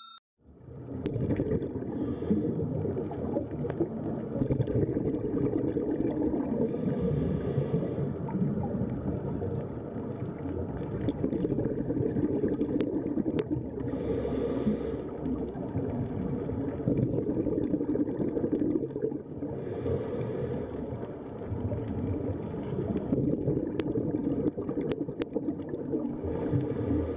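Underwater ambience on a diver's camera: a steady low rumble of water. About every six seconds comes a hissing, bubbling burst of exhaled scuba-regulator bubbles, and there are a few faint clicks.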